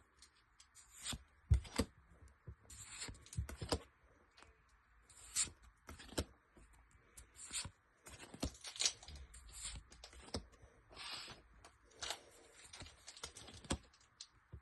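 A Pokémon TCG foil booster pack being handled and torn open, then its trading cards handled: irregular crinkles, crackles and small clicks.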